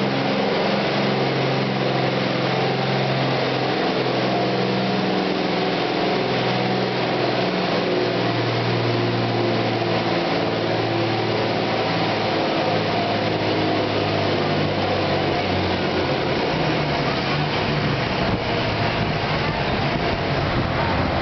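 Green Oliver farm tractor's engine running hard under load as it pulls a weight-transfer sled, a steady heavy drone with small shifts in pitch.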